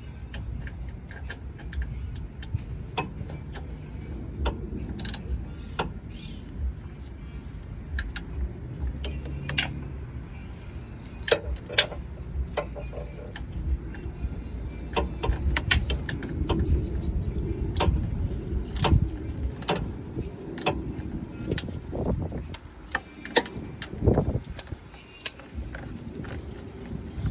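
Scattered clicks, taps and clatters of hand tools and fasteners being worked while a black guard in an engine bay is taken off, over a low rumble.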